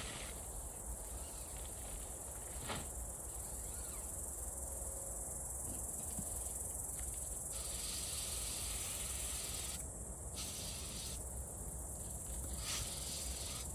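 Insects chirring in the surrounding grass and trees: a steady high-pitched drone that does not let up, with a faint tick about three seconds in and again near the end.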